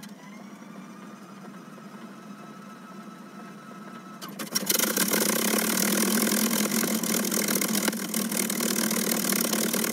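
Piston engine of a propeller plane being started after the "clear" call: a faint whine rises and then holds for about four seconds, then the engine catches and runs loud and steady.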